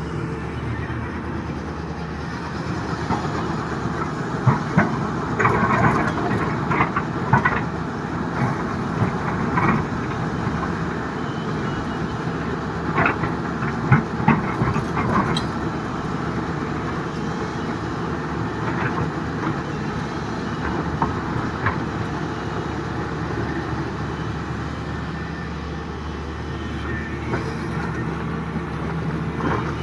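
Excavator diesel engine running steadily under load, with scattered knocks and clattering of rock against the steel bucket, busiest in the first half.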